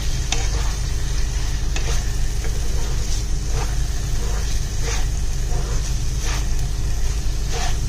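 Spatula stirring and scraping prawns through thick masala gravy in a nonstick pan, with short scraping strokes every second or so and a light sizzle, over a steady low hum.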